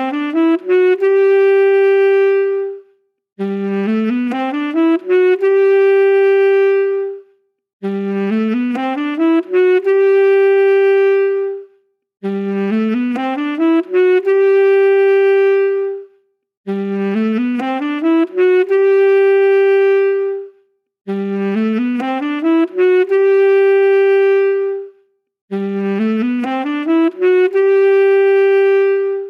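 Solo saxophone playing the same short phrase over and over: a quick climb of notes up to a long held note, repeated about every four and a half seconds with brief silences between.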